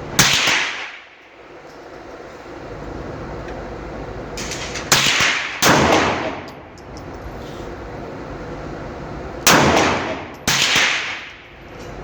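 Five shots from a Springfield XDM 9mm pistol, each a sharp crack with a second of ringing echo: one at the very start, a quick pair about five seconds in, and another pair near the end.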